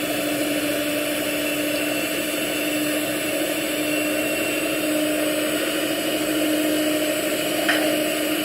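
Electric mixer running steadily at one speed, beating cake batter in a bowl, with a brief knock near the end.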